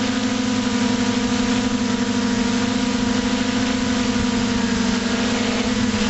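FPV drone's electric motors and propellers running steadily in flight, a continuous hum at one low pitch with a higher overtone and a hiss of rushing air over it, heard from the camera mounted on the drone.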